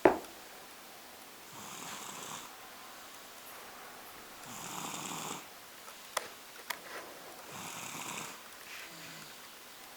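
A sleeping two-year-old toddler snoring, one snore about every three seconds, three in all. A sharp click at the very start, louder than the snoring, and two fainter clicks about two-thirds of the way through.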